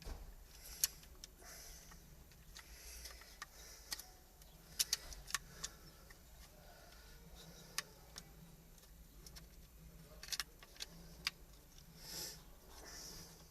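Irregular light clicks and taps, with a few short scraping rustles, as the plastic and metal parts of a Kia Rio accelerator pedal are handled and fitted back together during reassembly after greasing.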